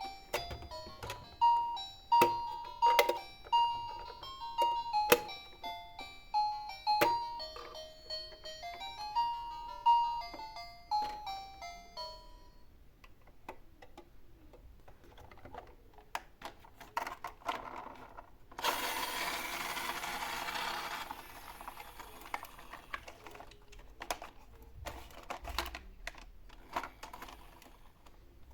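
A toy vehicle's electronic sound unit playing a beeping jingle for about twelve seconds, with clicks of plastic toy parts. After it stops come scattered clicks and rattles, and a rushing noise of about two and a half seconds in the second half.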